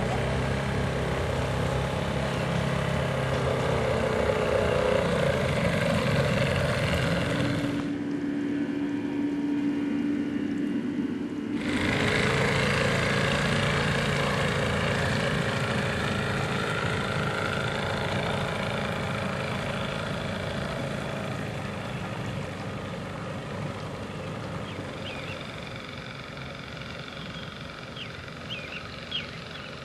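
Small outboard motor on a small open boat running steadily, fading as the boat moves away out onto the lake.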